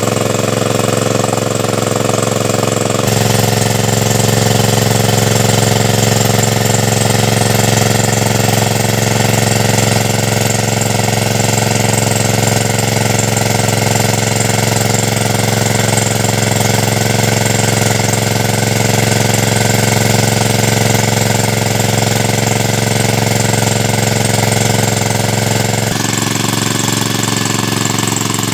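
Small petrol-engine water pump running steadily at a constant speed, drawing water out of the pond through its suction hose.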